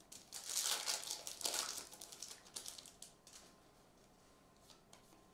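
Foil trading-card pack wrapper being torn open and crinkled by hand, a crackling rustle that dies away about three seconds in.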